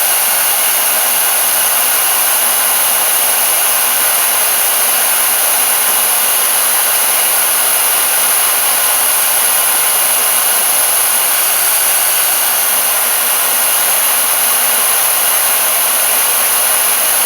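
Portable band saw motor running steadily with a high whine.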